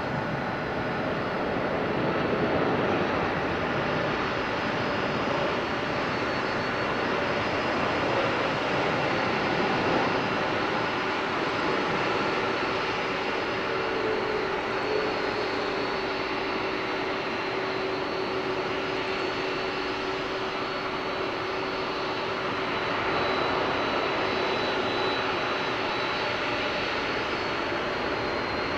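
Boeing 747-8 freighter's GEnx jet engines at takeoff power: steady jet engine noise with a held hum through the middle.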